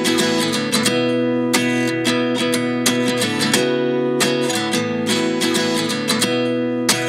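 Background music: strummed acoustic guitar chords in a steady rhythm, without singing.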